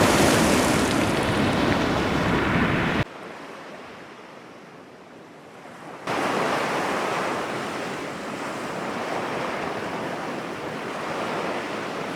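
Ocean waves and surf, a steady wash of noise that drops abruptly to a quieter level about three seconds in and comes back just as abruptly about three seconds later.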